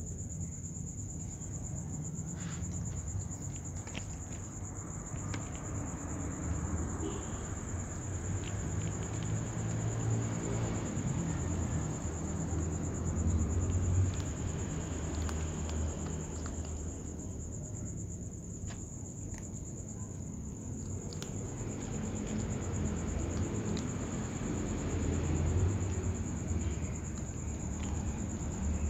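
Kittens crunching dry kibble and shuffling it about in a tray, small scattered clicks over a low rumble, with a steady high-pitched tone throughout.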